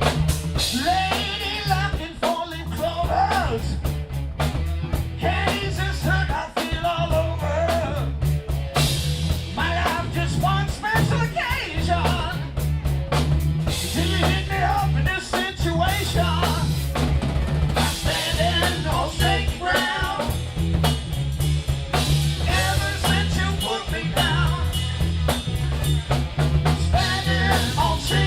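Live rock band playing: a drum kit keeps a steady beat under bass and guitar, with a wavering melodic lead line above.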